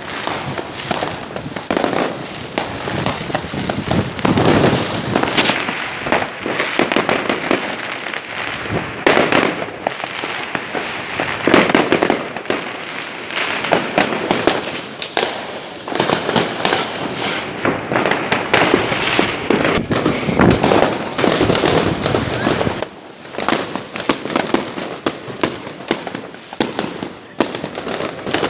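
Fireworks and firecrackers going off in a dense, continuous barrage of bangs and crackling, with a short lull late on.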